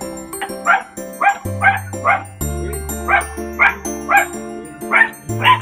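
A small dog barking in quick yaps, about ten sharp barks in bursts of two or three, over background music.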